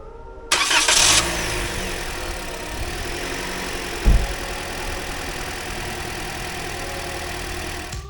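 Toyota Corolla engine cranked by the starter and catching about half a second in, then idling steadily: the first start after a new alternator is fitted. A single low thump about four seconds in.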